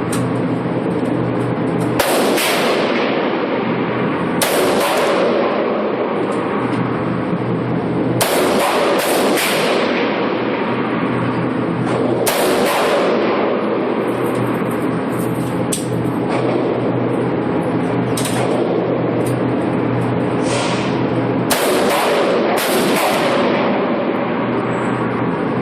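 Gunshots from a rifle or shotgun, about a dozen at irregular intervals of one to four seconds, each with a short ring after it.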